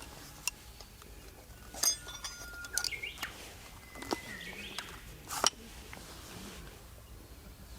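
Birds calling with short whistled notes and gliding chirps, over a few sharp clicks or knocks, the loudest about five and a half seconds in.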